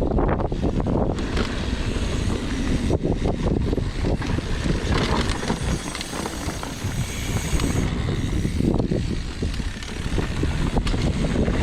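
Wind buffeting the microphone over the rattle and knocks of a downhill mountain bike running over rough trail.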